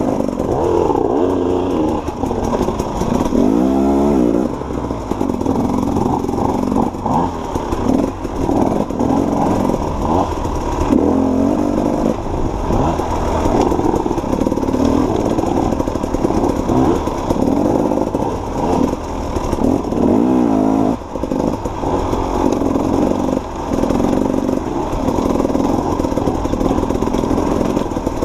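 Off-road dirt bike engine ridden on a rough trail, its revs rising and falling constantly with the throttle, with quick rising blips of revs here and there.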